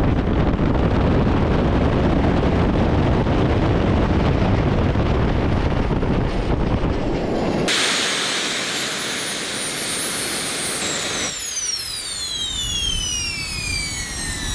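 Three small turbine jet engines running on diesel fuel with a loud, dense rushing noise. About eight seconds in a high whine comes through. From about eleven seconds several whining tones fall steadily in pitch as the turbines spool down.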